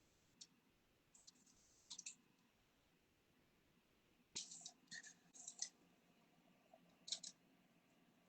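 Faint, scattered clicks and short scrapes of kitchen utensils being handled, in a cluster about four and a half to six seconds in, with single ones near the start, around two seconds and near the end.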